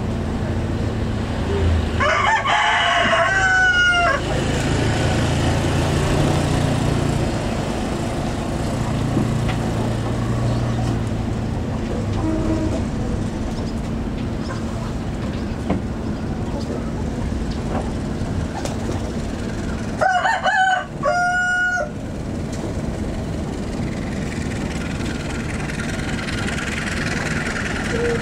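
A rooster crowing twice, about two seconds in and again around twenty seconds in, over a steady background rumble.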